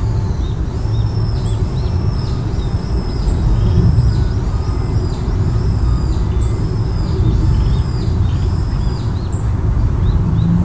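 Road and engine rumble inside a moving car, with a faint high chirp repeating about one and a half times a second above it.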